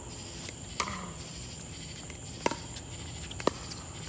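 Pickleball paddles striking a plastic pickleball in a rally: three sharp pocks, about a second in, midway, and near the end. A steady high insect chirring runs underneath.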